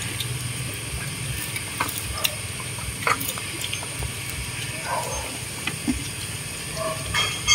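Scattered light clicks and taps of tableware during a meal, over a steady background hiss and low hum.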